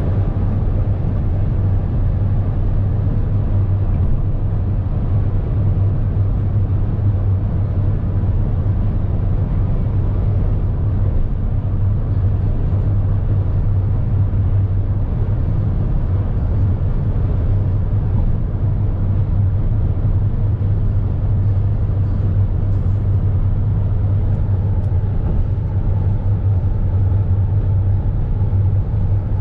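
Steady drone of a car driving along, heard from inside the cabin: a continuous low road-and-engine hum with noise above it, unchanging throughout.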